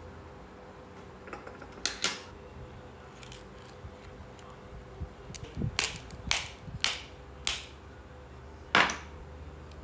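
A series of sharp, separate clicks and knocks, hard objects being handled or set down: one about two seconds in, a quick run of five between about five and seven and a half seconds, and a loud one near the end.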